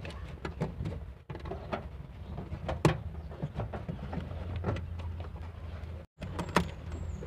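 Irregular clicks, knocks and rubbing as plastic push clips and the carpeted trunk trim panel are pressed back into place by hand, with handling noise on the phone's microphone. The sharpest clicks come about three seconds in and near the end.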